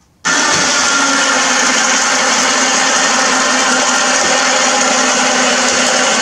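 Small battery-powered electric winch running steadily, reeling in its cable under load as it lifts the front of a lawn tractor; the motor starts abruptly just after the beginning.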